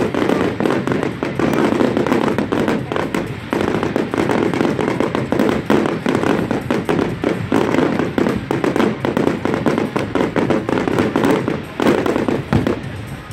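Fireworks display: a dense, continuous barrage of aerial shell bursts and crackling, bangs following one another several times a second, easing off near the end.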